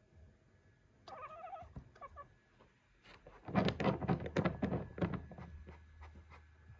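Siberian cat watching a gecko through a window gives a short wavering chirp about a second in, then a fast run of sharp clicks for about two seconds, the loudest part.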